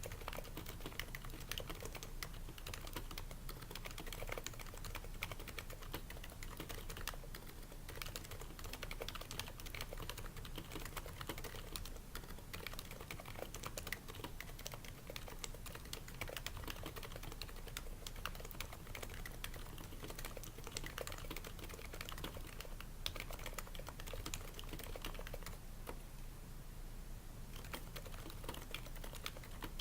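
Continuous typing on an HHKB Pro 2's Topre switches, a quick irregular run of soft keystroke clicks. The switches are fitted with o-rings to damp the bottom-out, and the slider rails are lubed.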